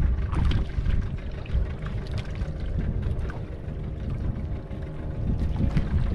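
Fishing boat under way at sea: a steady engine hum beneath a rushing of water, with short splashes now and then.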